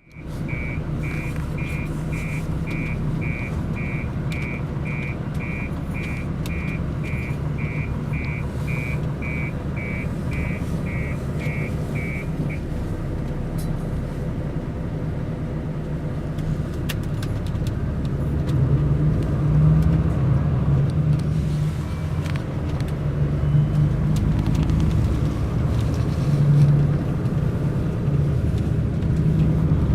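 Mercedes-Benz O500 RSD coach's diesel engine running steadily, with a repeating electronic warning beep about twice a second for the first dozen seconds. The engine then builds up from about 18 seconds in as the coach pulls away.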